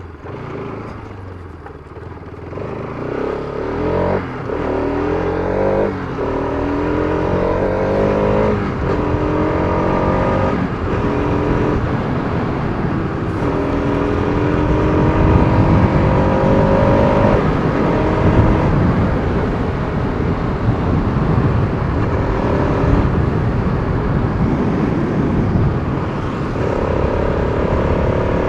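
Bajaj Pulsar RS200's single-cylinder engine heard from the rider's seat, accelerating through the gears: the pitch climbs and then drops at each upshift, several times over, before settling into a steadier note at speed.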